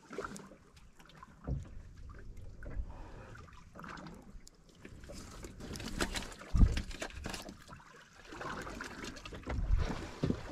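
Water sloshing and lapping against a small fishing boat's hull, with scattered thumps and knocks. The loudest thump comes about six and a half seconds in.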